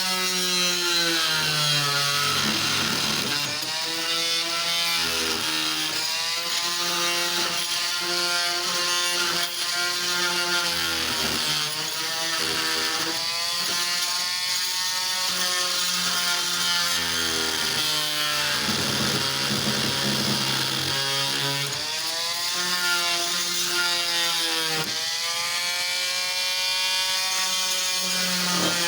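Electric oscillating multi-tool running and cutting into wood, its motor whine dipping in pitch each time the blade bites under load and rising again as it eases off, several times over.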